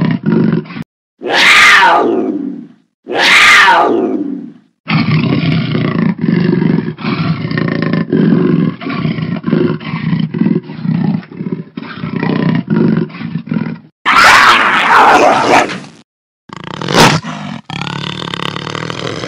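Jaguar roaring: two loud calls that fall in pitch, then a long run of short, repeated grunting calls, then another loud falling roar and more grunts near the end.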